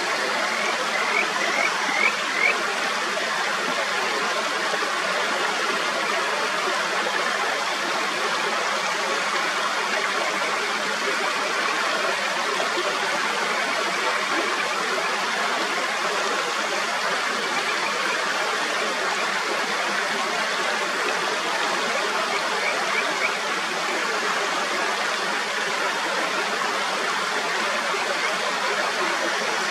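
Mountain stream flowing steadily over rocks, a dense even rush of water. A Kajika frog gives a short series of rising whistled notes near the start, about five in a row, and three more about twenty-three seconds in.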